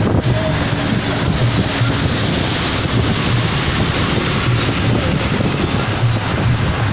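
Wind rushing over the microphone at the open window of a moving vehicle, over steady road and engine rumble; a truck passes close by around the middle.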